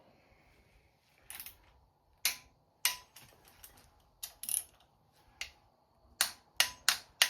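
Hand tools working on a small-block Chevy's intake manifold bolts as they are snugged up: about ten sharp metallic clicks at irregular spacing, coming closer together near the end.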